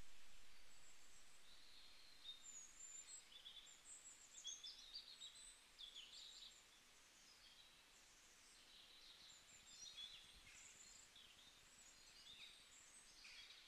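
Faint birdsong: scattered short chirps and twittering calls from small birds over near silence, after a fading sound dies away in the first couple of seconds.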